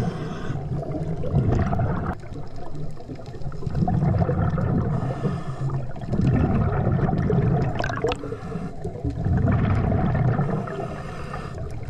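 Diver breathing through a hose-fed regulator underwater: gurgling bursts of exhaled bubbles every few seconds, with a softer hiss from the regulator in between.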